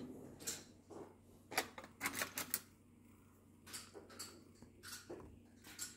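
Light handling clicks and taps, scattered, with a quick cluster of them about two seconds in.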